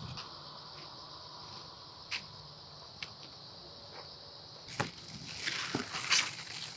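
Steady high-pitched chorus of insects in the fields, with a few sharp clicks, and leaves rustling and crackling near the end as a hand pushes through the pumpkin vines.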